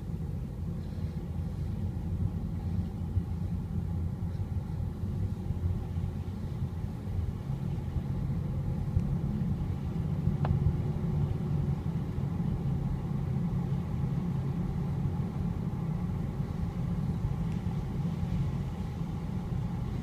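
Steady low rumble of a car's road and engine noise, heard from inside the cabin while driving at speed, with a single short click about halfway through.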